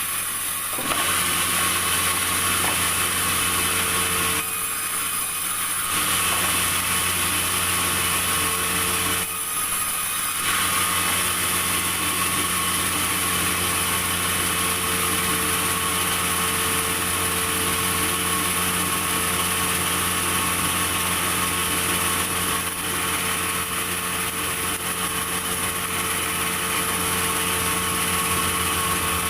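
Sawmill machinery running steadily: a constant engine-like hum with a high whine over it, briefly changing twice, about four and nine seconds in.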